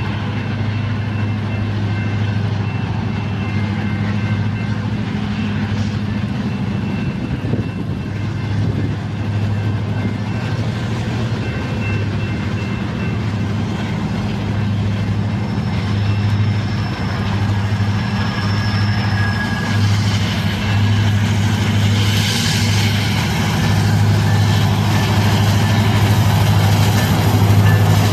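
Union Pacific EMD SD70AH diesel locomotives approaching and passing, a steady low engine drone that grows louder as the units draw close.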